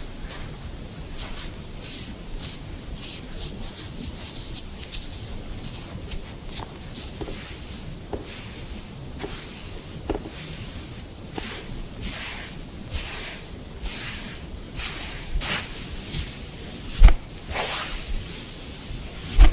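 A wet wipe rubbing over a kitten's fur in quick repeated strokes, each a short soft scratchy swish. There is one dull thump near the end.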